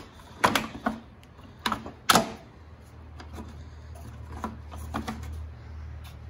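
Hard plastic clicks and knocks as a wiring-harness connector is pushed and seated into a GM truck underhood fuse block, the loudest about two seconds in. A low steady hum follows.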